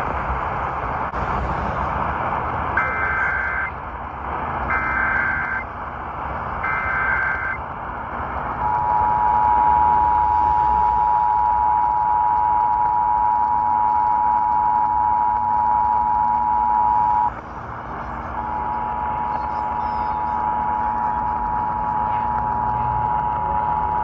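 Emergency Alert System test played through a small portable AM radio's speaker over AM static hiss. Three short bursts of SAME header data tones, about two seconds apart, are followed by the steady two-tone EAS attention signal. The attention signal cuts out for about a second past the middle, then resumes.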